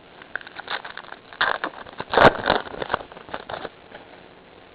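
Baseball trading cards being handled and flipped through: a run of quick, irregular clicks and scrapes, loudest a little past halfway.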